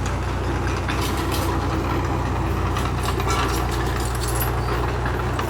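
Heavy diesel engine of earth-moving machinery running steadily, with a few brief clattering noises about one and three seconds in.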